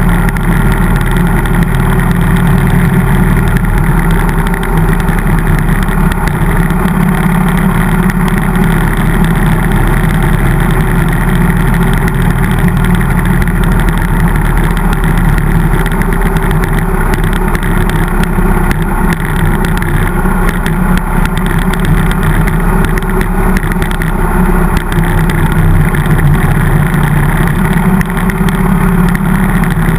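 Harley-Davidson V-twin motorcycle engine running steadily under way at a moderate cruising speed, with road noise.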